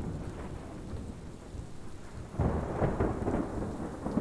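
Steady rain with a rumble of thunder starting about two and a half seconds in.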